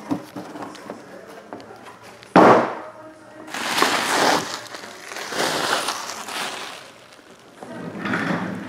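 Plastic bubble wrap crinkling and rustling as it is pulled and handled by hand, in several bursts of about a second each. The first burst, about two and a half seconds in, starts suddenly and is the loudest.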